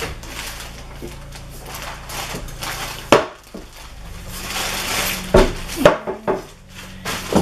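Hard knocks and clatter of a Cubii Jr under-desk elliptical being lifted, set down on a table and handled: one sharp knock about three seconds in, a stretch of rustling, then several more knocks near the end.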